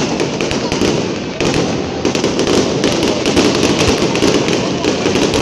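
Aerial fireworks bursting in quick succession: a dense, continuous run of pops and crackles.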